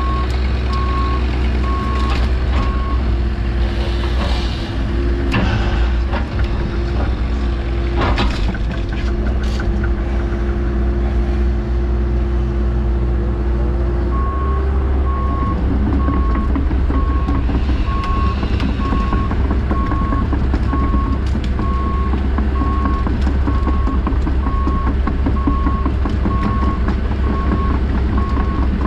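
Diesel engine of a heavy log-grapple machine running steadily under load, with a reversing alarm beeping in a regular pattern for the first few seconds and again from about halfway on. Scattered knocks and clunks in the first several seconds.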